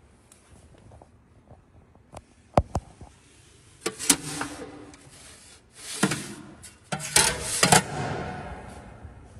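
Handling noises: a few sharp knocks about two to three seconds in, then three brief rubbing noises.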